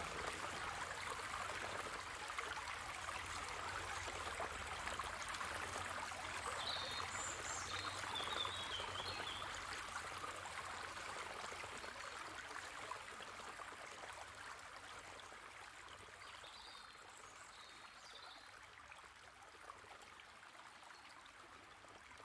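Running water of a stream, an even rushing and trickling that slowly fades out.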